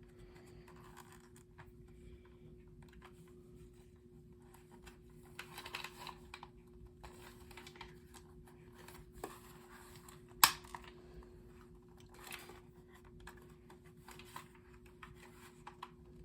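Faint scattered clicks and scrapes of hands working a carbon monoxide alarm loose from its packaging, with one sharp click about ten seconds in. A faint steady hum runs underneath.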